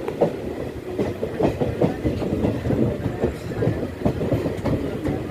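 Passenger train rolling along, its wheels clattering over the rail joints in quick, irregular knocks over a steady low rumble, heard from on board.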